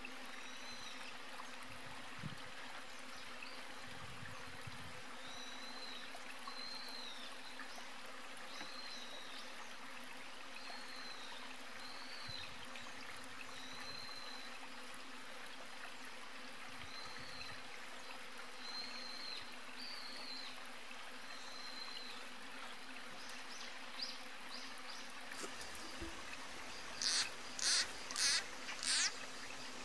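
Outdoor nature ambience: a steady hiss like running water, with a short high chirp repeated every second or two. Four loud, sharp calls come in quick succession near the end.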